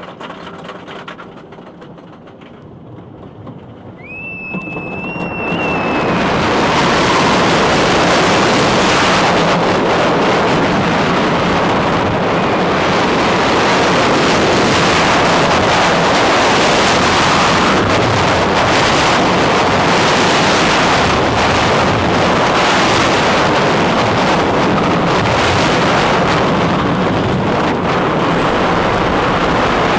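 Wooden roller coaster train running on its track, heard from a rider's microphones in the front car. After a few quieter seconds there is a brief high squeal about four seconds in. Then, as the train drops and gathers speed, loud wind rushes over the microphones above a steady rumble of wheels on the wooden track.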